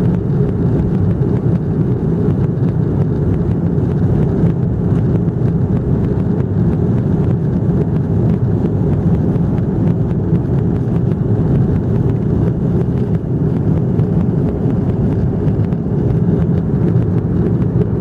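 Aeroplane during takeoff: a loud, steady low rumble of engine and air noise that does not change.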